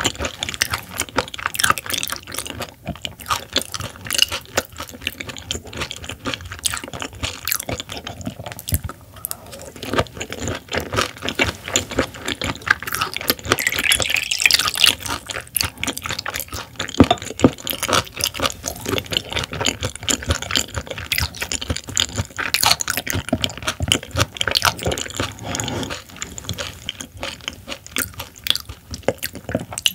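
Close-miked chewing of raw silver pomfret sashimi: many short clicks and mouth sounds. About halfway through, carbonated water is poured from a glass bottle into a glass for a couple of seconds.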